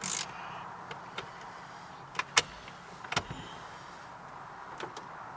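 Scattered sharp clicks and knocks of hand tools and parts being handled while the steering wheel and airbag are taken off a truck's steering column, five or so in all, the loudest about two and a half seconds in.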